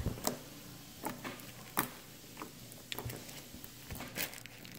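Green glitter slime squeezed and poked by hands, giving irregular sticky clicks and squelchy pops.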